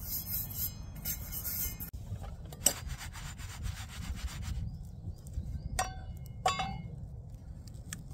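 Rough scraping and rubbing, then two sharp metallic clinks with a short ring a little past the middle, from a steel frying pan being shifted and knocked on a metal fire grill.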